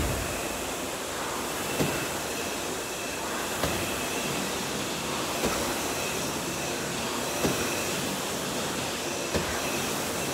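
20-pound medicine ball thudding once per wall-ball rep, a short thud about every two seconds, five times, over a steady rushing noise.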